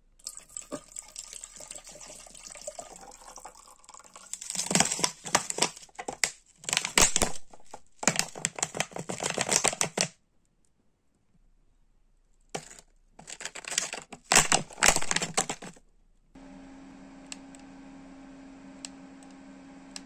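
Water glugging out of a plastic bottle into the water tank of a Microhoo mini air cooler, in two spells of loud bursts with a pause between. Near the end the cooler starts running with a steady hum.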